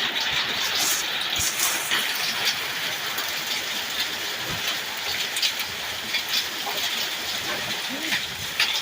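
Heavy rain and hail pouring down in a severe thunderstorm, a steady roar of rain dotted with sharp ticks of hailstones striking.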